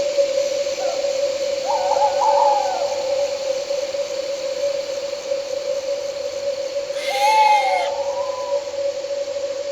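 An owl calls twice, short wavering calls that fall in pitch at the end, about two seconds in and again about seven seconds in. Underneath runs a steady drone of night insects such as crickets, and a short burst of hiss comes with the second call.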